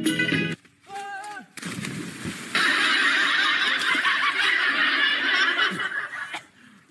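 Background music cutting off just after the start, a short shout about a second in, then from about two and a half seconds in several seconds of people laughing and shouting over splashing water.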